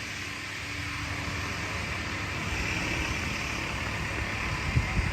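Steady street noise of passing traffic, growing slightly louder, with two short low thumps near the end.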